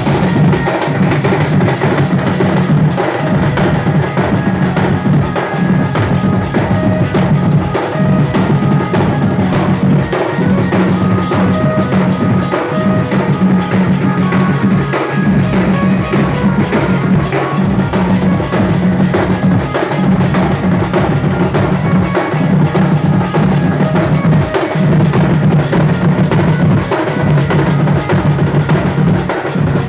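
Sambalpuri folk music driven by fast, dense drumming, with a melodic line above the drums.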